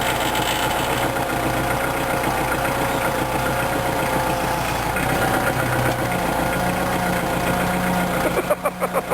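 Tractor engine running steadily, its low hum stepping up in pitch about six seconds in. Near the end the sound breaks into rapid fluttering swings in loudness.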